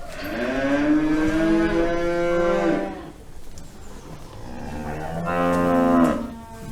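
A cow mooing twice: a long moo of nearly three seconds, then a shorter one rising in loudness about four and a half seconds in.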